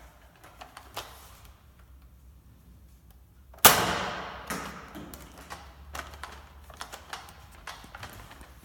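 Nerf blaster being handled and fired: a few light plastic clicks, one sharp loud shot about three and a half seconds in, then a run of quick irregular clicks and taps from working the blaster.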